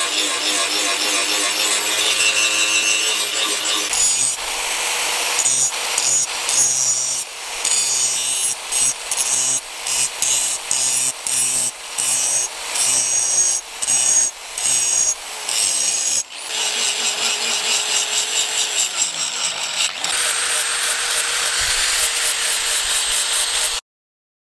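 Handheld angle grinder grinding the edge of a forged steel axe head. Its disc bites and lifts off in many quick passes through the middle, with steady grinding before and after. The sound cuts off suddenly near the end.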